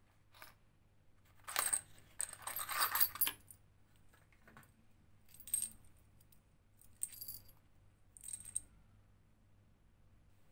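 Small metal parts of a new cam lock set, the lock cylinder, keys, cam, nut and washer, clinking and jingling together as they are handled in the palm. About five short bursts, the longest and loudest about two seconds in.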